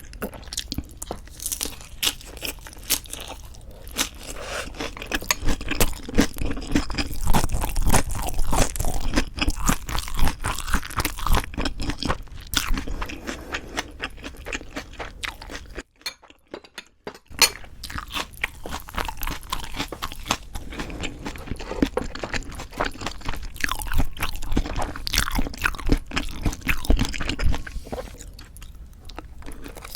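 Close-miked chewing of crunchy ssam wraps of raw fish bibimbap and boneless chicken feet, with dense, irregular crisp crunches and wet chewing. The sound stops briefly about halfway through.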